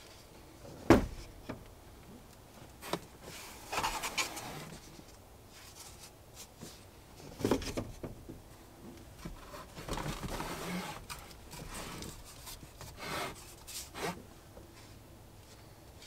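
Vinyl flooring planks being handled and pulled from a center console: the planks scrape and rub against each other and the plastic, with several sharp knocks, the loudest about a second in.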